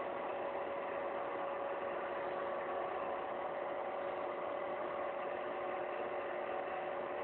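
A steady mechanical hum with a few constant tones, unchanging throughout, like a motor running.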